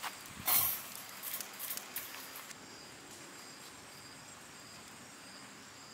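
Insects chirping steadily in the background, a faint repeated high chirp. About half a second in there is a short loud scrape, followed by a few light clicks and rustles over the next two seconds.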